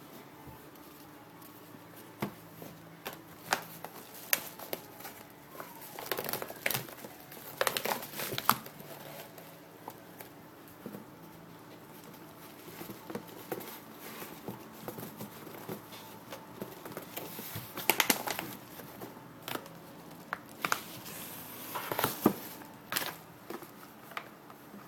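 Packaging being handled during an unboxing, crinkling and rustling in irregular bursts with scattered sharp clicks and taps.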